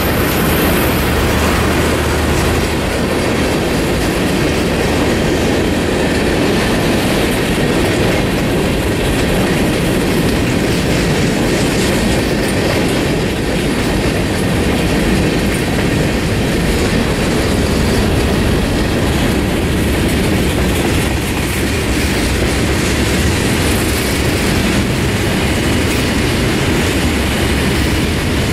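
Freight train of tank cars rolling past close by: a loud, steady rumble of steel wheels on the rails.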